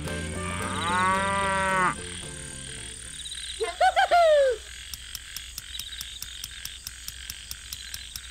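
Farm sound effects: a cow moos for about a second and a half. Around four seconds in comes a second, louder animal call that rises and then falls in pitch, followed by faint quick, regular ticking.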